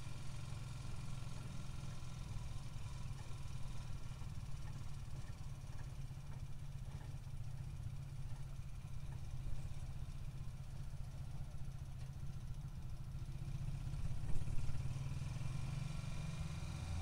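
A vehicle's engine running with a steady low hum, heard from inside the passenger cabin.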